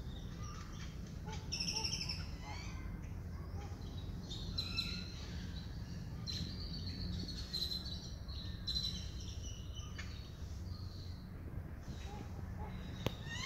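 Small songbirds chirping and singing, many short high calls scattered throughout, over a steady low background rumble. A single sharp click near the end.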